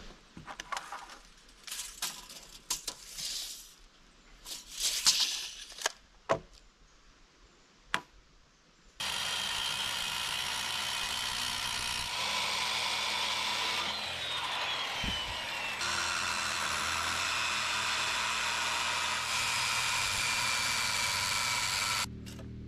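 Corded circular saw rip-cutting lengthwise along a rough chainsaw-milled board. It starts about nine seconds in, runs steadily for about thirteen seconds and cuts off sharply near the end. Before it there are a few scattered knocks and clatter.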